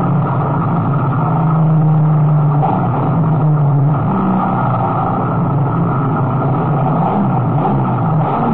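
Dodge TC 4000 race car's engine running hard at speed, heard from inside the car. The engine note dips and climbs again a few times as it goes through the corners.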